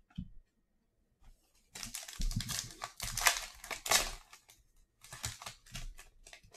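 Trading card pack's foil wrapper crinkling and tearing as it is ripped open by hand, starting about two seconds in, with lighter crinkles and rustles near the end as the wrapper is pulled off the cards.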